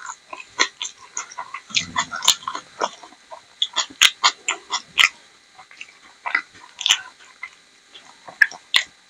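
Close-miked eating sounds of rajma and rice: wet chewing with irregular smacking clicks of the lips and tongue. There is a brief low hum about two seconds in and a quieter lull past the middle.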